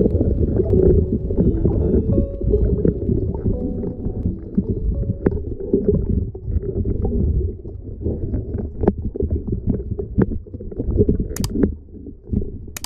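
Muffled underwater rumbling of moving water heard through a camera's waterproof housing, with scattered small clicks and knocks. Two sharp clicks come near the end.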